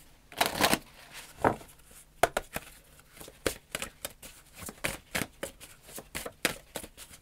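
A deck of oracle cards being shuffled by hand: a string of irregular light clicks and swishes as the cards slide against each other.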